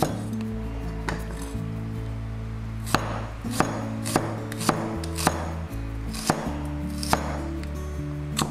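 Cleaver slicing shallots into rings on a wooden chopping block: about ten sharp knocks of the blade on the wood, irregularly spaced, coming faster in the middle. Background music plays underneath.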